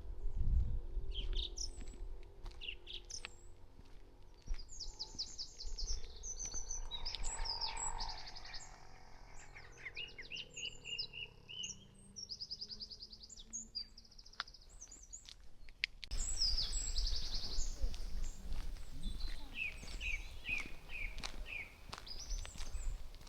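Several songbirds singing, with rapid trills and quick runs of repeated high notes, and a falling series of notes near the end. Under them is a low rumble that grows louder about two-thirds of the way through.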